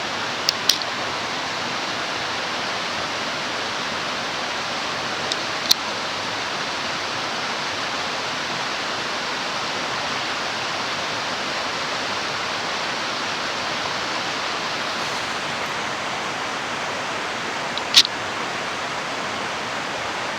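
Mountain stream rushing steadily over rocks, with a few brief sharp high clicks: a pair about half a second in, another near six seconds and one at eighteen seconds.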